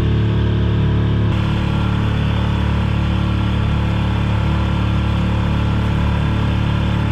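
Honda four-stroke outboard motor running steadily at cruising speed, pushing the small boat along, with water rushing past the hull.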